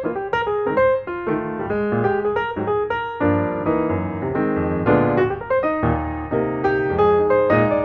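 Piano music playing a steady, flowing run of notes.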